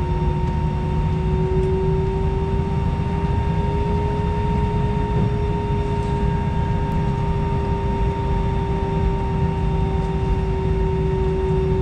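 Steady cabin noise of an Airbus A319 at the gate, heard from a window seat: a constant low rumble with a steady whine over it, which rises slightly in pitch a couple of seconds in and then holds.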